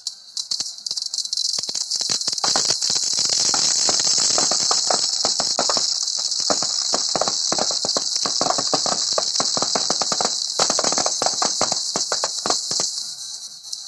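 Firecrackers packed inside a burning Ravana effigy going off in a rapid, irregular string of cracks and bangs, many a second, over a steady high hiss. The cracking thins out near the end.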